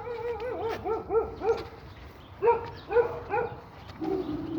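A dog barking in quick runs of short, high-pitched yaps: a rapid string of them, a short pause, then three more, and a longer whining call near the end.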